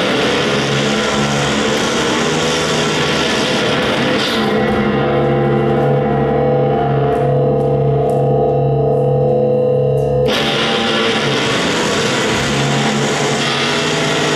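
Electric guitar played live through effects and distortion, a dense wash of sustained droning tones. A bright, hissy upper layer thins out about four seconds in and cuts back in sharply about ten seconds in.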